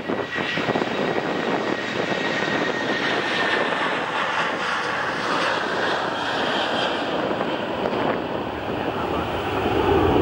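Airbus A330-200's Rolls-Royce Trent 700 turbofans at low approach power as the airliner flares just above the runway: steady jet noise with a faint high whine in the first few seconds, growing louder near the end as it comes down to touchdown.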